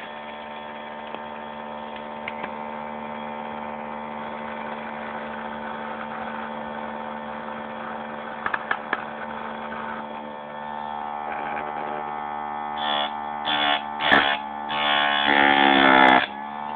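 ZS-180 saw-chain sharpening machine running with a steady electric hum. A few clicks come just past the middle, and near the end there are several short, much louder bursts as the grinding wheel bites into the chain.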